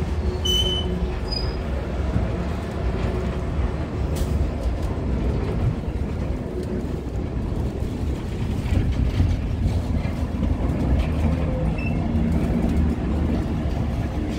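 Steady low rumble of a passenger train car rolling along the rails, heard from aboard the train. A couple of brief high-pitched squeaks come near the start.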